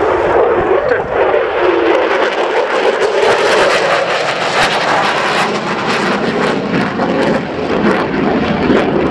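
Polish Air Force F-16C jet fighter's Pratt & Whitney F100 turbofan engine heard from the ground as the jet flies its display, a loud, steady jet roar. For a few seconds in the middle it takes on a harsh crackle.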